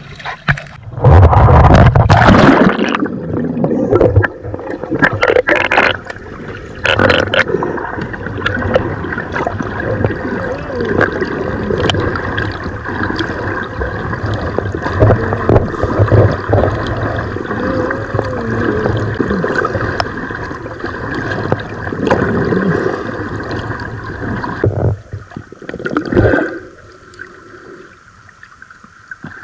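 Water gurgling and sloshing around a camera at and below the surface while snorkeling, with loud surges of water noise in the first few seconds and a steady hum underneath.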